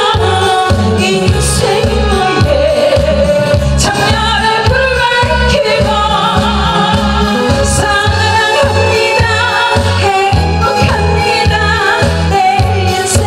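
A woman singing a Korean pop ballad live into a handheld microphone over loud backing music with a steady pulsing bass beat.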